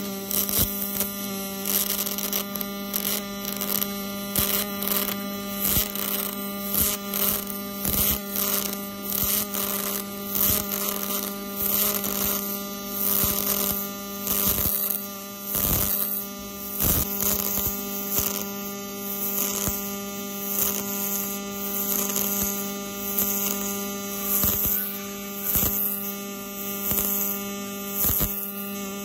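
MIG/MAG welding arc running a pass of a multipass weld on thick steel plate: a steady buzzing hum with dense crackling, its loudness rising and falling roughly once a second.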